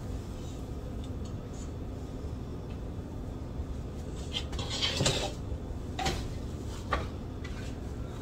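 A stainless steel mixing bowl knocking and clattering against the countertop as bread dough is turned out of it, a few sharp knocks in the second half, the loudest about five seconds in, over a steady low hum.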